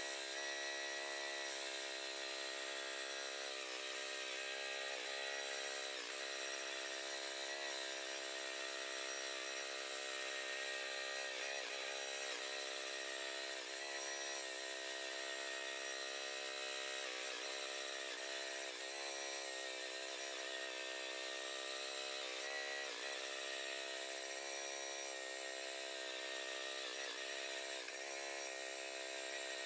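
Motor of a power machine running steadily, its pitch dipping briefly every few seconds as it takes load while working on a big tree root.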